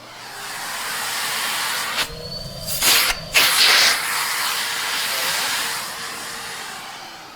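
Numatic James commercial canister vacuum running, a loud steady rush of air that builds up over about a second. Around two and three and a half seconds in, the rush drops away and surges back, then it slowly winds down toward the end.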